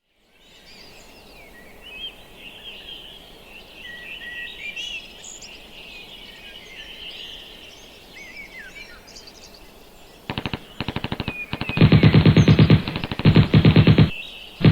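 Birds chirping and singing over faint background hiss for about ten seconds. Then a machine-gun sound effect comes in: rapid automatic fire in several bursts, the later ones much louder.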